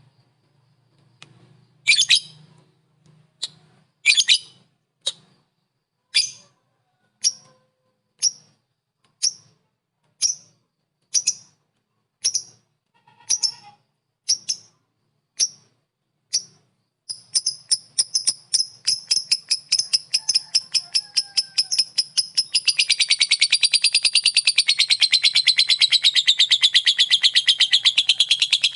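Lovebird calling: single sharp, high chirps about once a second, then after about seventeen seconds the calls speed up and run together into a long, fast chattering trill (the 'ngekek') that wavers up and down in pitch.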